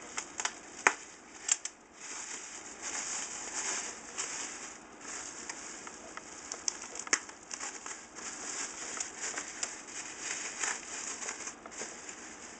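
Plastic bubble wrap crinkling and rustling as it is unwrapped by hand, with scattered sharp crackles.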